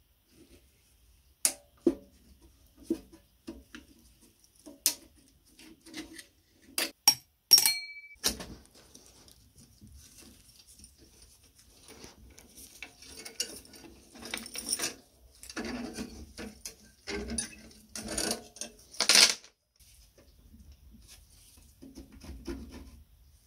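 Metal parts of a rusty antique seed planter being handled: sharp knocks and clinks in the first several seconds, one with a short ring, then the rusty chain on its wooden handle rattling and jangling for several seconds near the middle.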